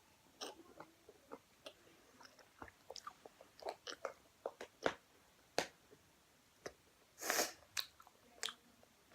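Close-up mouth sounds of someone chewing a Fini filled bubble-gum ball: irregular wet clicks and smacks. There is a short, louder rush of noise about seven seconds in.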